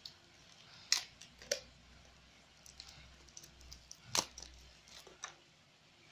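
Hands unwrapping and handling a small plastic toy from a surprise egg: a few sharp plastic clicks with faint ticking between them, the loudest click about four seconds in.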